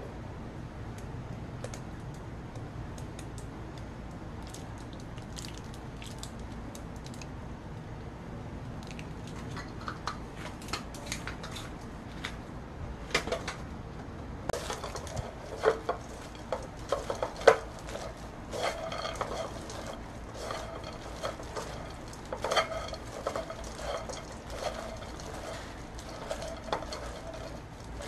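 Kitchen handling noise: scattered light clicks, knocks and squelches while mayonnaise is squeezed from a plastic squeeze bottle onto dried shredded squid. The sounds thicken in the second half, over a low steady room hum.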